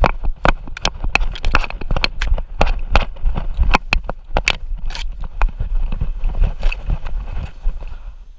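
Rhythmic sharp knocks and rattles, about two or three a second, from a camera harnessed to a dog walking through the woods, each stride jolting the mount, over a low rumble of movement. The knocks thin out and fade near the end.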